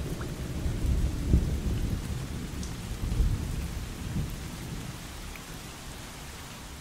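Low rolling rumble of thunder over a steady hiss of rain, swelling a couple of times and then slowly fading out.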